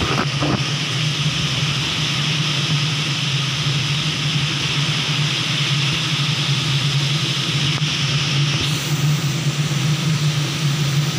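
Heavy rain falling steadily in a downpour, with a steady low drone underneath.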